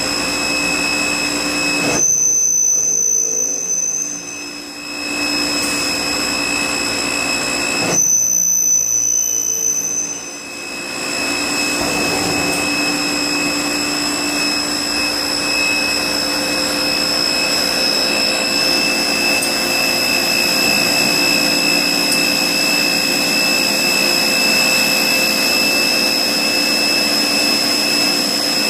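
Rüsch RDU CNC beam drilling and sawing line running: a steady mechanical whir with several constant high-pitched whines. Twice, about six seconds apart, the rushing noise cuts out for about two seconds, leaving a high whine, then comes back.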